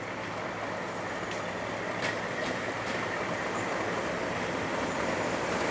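English Electric Class 37 diesel locomotive running slowly on its approach, its V12 diesel engine humming steadily and growing louder, with a few short clicks.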